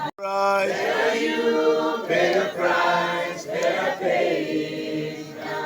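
A group of voices singing a worship chorus together, with a brief sudden break right at the start.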